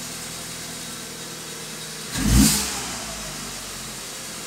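Alfa Romeo 147's 1.6 Twin Spark four-cylinder petrol engine idling, heard from inside the cabin. About two seconds in it gets a short blip of throttle, then the revs fall back to idle.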